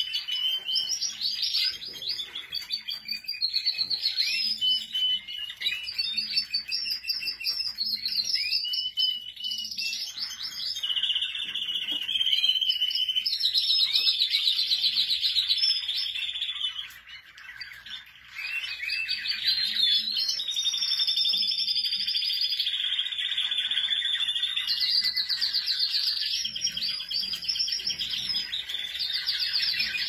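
Budgerigars warbling, a busy rippling chatter of fast trills and short whistles that runs almost without a break and drops off briefly a little past the halfway point.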